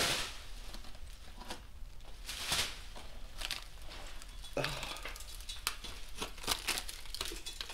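Crinkling, crumbling and scraping as gloved hands break off and pull out flaky rust crust and fibrous mouse-nest debris packed into the top of an engine block. The sound comes as irregular short crackles and rustles.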